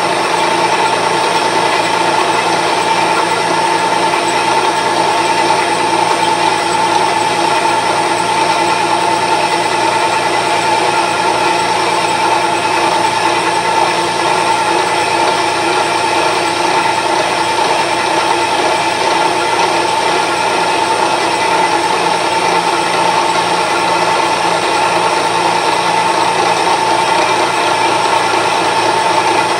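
A gear cutter on a vertical arbor is running and cutting teeth into a gear blank held in a dividing head. The machine runs steadily, with a constant high whine over the cutting noise.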